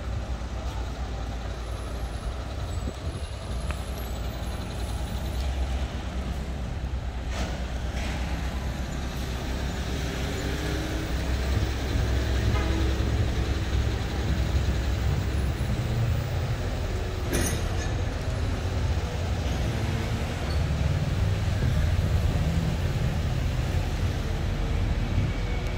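City street traffic: a steady low rumble of vehicle engines that grows heavier about halfway through, with a couple of brief clicks.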